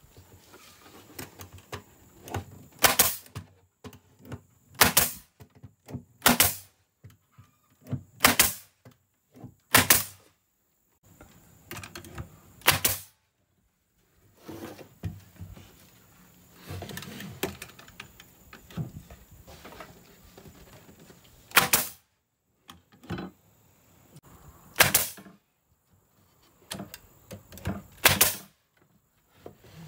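Pneumatic brad nailer firing brads into wood: about nine sharp shots a second or two apart, with a long pause midway, and soft knocks between shots as the tool and boards are repositioned.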